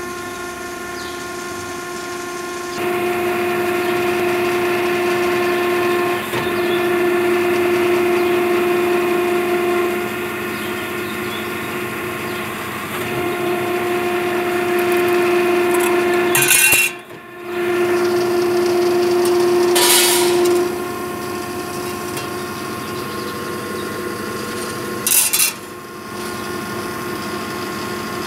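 Jurret 40-ton hydraulic ironworker with a 3 HP motor driving its hydraulic pump, running with a steady hum and whine. The whine swells louder in stretches of several seconds. A few short sharp noises come in the second half as steel plate is sheared.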